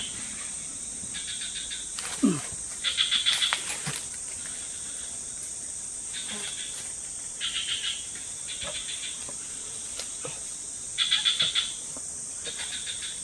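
A steady, high-pitched drone of forest insects, with short rapid-pulsed chirping calls coming back every second or two. There are a few faint knocks.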